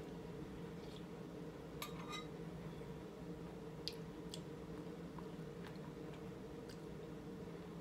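Eating from a bowl with a metal spoon: a few short clinks of the spoon and soft wet chewing sounds, over a steady low hum.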